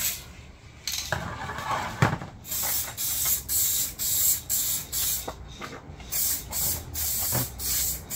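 Aerosol spray-paint can spraying in short hissing bursts, about two a second, after a quieter first second. A sharp knock about two seconds in.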